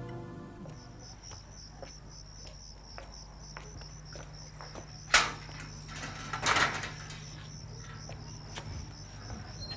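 Crickets chirping in a steady, pulsing high trill. About five seconds in a metal gate is opened: a sharp latch click, then a short rattle a second later.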